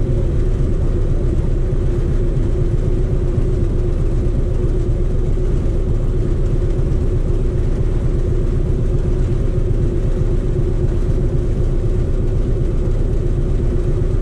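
Harley-Davidson V-twin motorcycle engine idling steadily in stopped traffic, a continuous low rumble.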